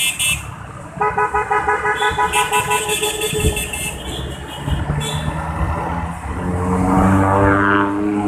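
Vehicle horns honking in a fast run of repeated beeps over motorcycle and traffic noise, then an engine note rising in pitch near the end.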